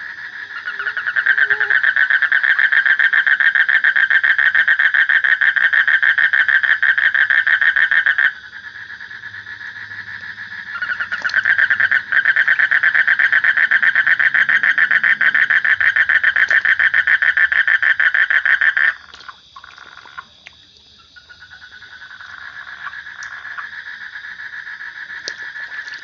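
A frog calling close by in a long, rapid pulsing trill: two loud bouts of about seven seconds each, with fainter calling at the same pitch between them and after.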